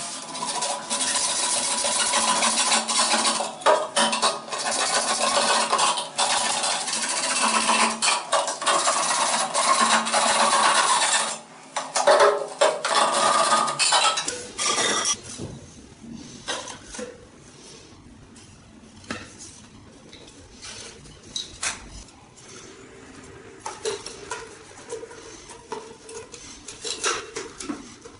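Hacksaw cutting through a white PVC drain pipe: back-and-forth sawing for about eleven seconds, a short break, then a few more seconds of sawing. After that, quieter scrapes and clicks as the cut pipe is handled.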